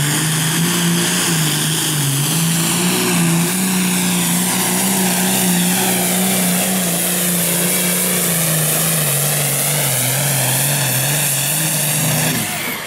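Modified pulling tractor's 466-cubic-inch diesel engine at full throttle hauling a weight-transfer sled, with a high whine over the engine note. The note sags lower late in the pull, then drops away abruptly as the pull ends near the close.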